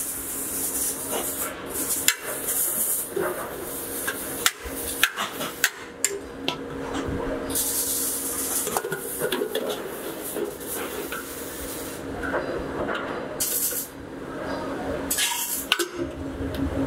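Hammer striking steel and steel muffler pipes clanking, in irregular sharp metallic knocks as a perforated inner pipe is knocked into a muffler shell. Short bursts of hiss come between the knocks, over a steady low hum.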